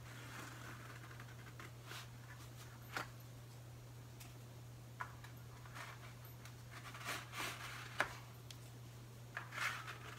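Plastic tire levers prying the old dry-rotted tire's bead off a steel bicycle rim: scattered short clicks and scrapes, the sharpest about eight seconds in, with hands handling the rubber. A steady low hum runs underneath.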